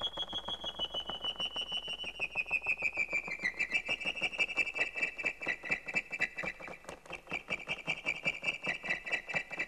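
Electronic background music: a high synthesized tone pulsing rapidly, stepping down in pitch about three seconds in.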